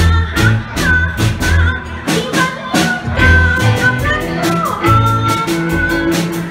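A live band plays a Khmer pop song. A female vocalist sings over a drum kit with a steady beat, bass, keyboard and electric guitar.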